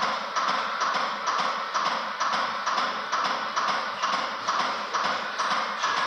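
CPR training manikin being given chest compressions, a regular clicking about two a second that stops near the end as the compressions end.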